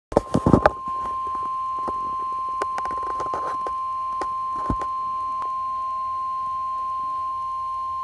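Midland weather alert radio sounding the NOAA Weather Radio warning alarm tone, a single steady high tone that signals a warning is being broadcast, here a tornado warning. A few loud knocks and rustles in the first second, with scattered light clicks after.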